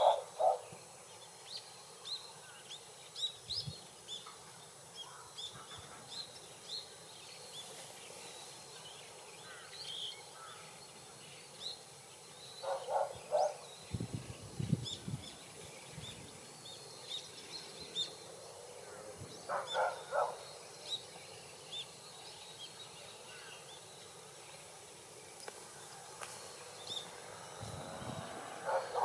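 Outdoor bird sounds: small birds chirping in short high notes throughout, and a larger bird calling a few times in quick runs of three or four lower, harsher notes. A brief low rumble comes near the middle.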